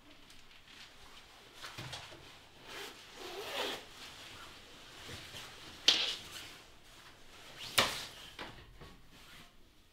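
Rustling of a padded winter coat being taken off, with two sharp knocks, one about six seconds in and a louder one just before eight seconds as the coat goes onto the coat rack.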